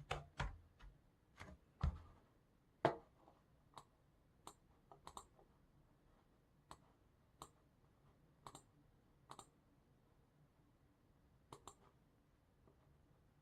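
Computer mouse clicking at irregular intervals, single clicks and a few quick double-clicks, after a short burst of heavier keystrokes in the first few seconds.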